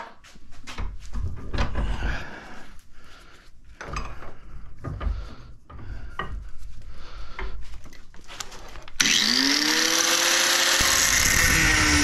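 Metal knocks and rattles as a magnetron cathode is set and clamped in a bench vise. About nine seconds in, an angle grinder with a thin cut-off wheel starts suddenly, whines up to speed, and drops in pitch near the end as the wheel bites into the metal.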